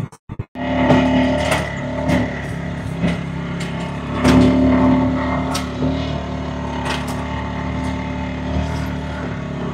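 Tractor engine running steadily, swelling a little about four seconds in, with scattered sharp ticks over it.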